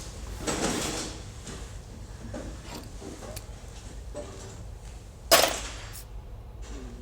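A low, steady hum throughout, with a scraping sound about half a second in and a single sharp bang a little after five seconds, like a door or drawer knocked or slammed.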